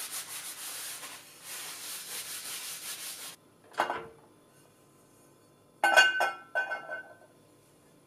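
Cloth rubbing over a cast iron skillet as it is wiped down, for about three seconds. The skillet is then hung on a metal wall hook: a knock about four seconds in, and the loudest sound, a pair of ringing clinks of iron on the hook and tiles around six and seven seconds.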